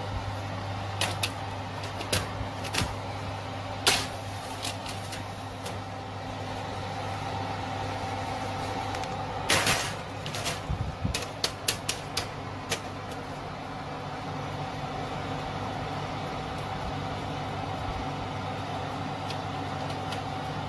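Electric oven running with a steady hum, its fan or motor giving a few fixed tones. Over it come sharp metal clinks and clatters of baking trays against the oven racks and a spoon on a metal tray, a cluster of them about halfway through.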